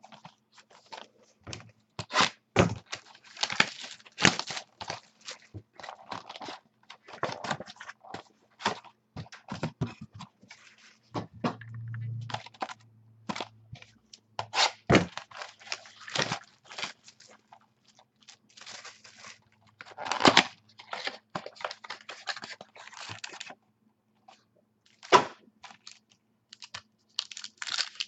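Trading card box and foil packs being torn open and crinkled, with cardboard and cards handled in a string of crackles, rips and light knocks.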